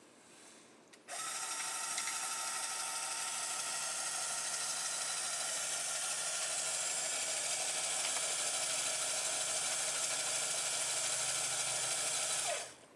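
LEGO Power Functions motor driving the truck's winch through plastic gears, a steady whir as it winds in the string line. It starts abruptly about a second in and runs evenly, winding down just before the end.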